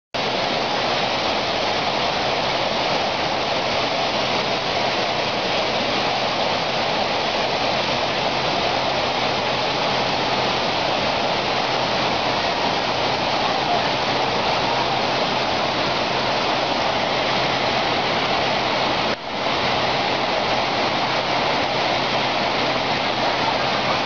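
Water pouring over a low concrete weir in a wide waterfall: a steady rush of falling and churning water, with one brief dip about three-quarters of the way through.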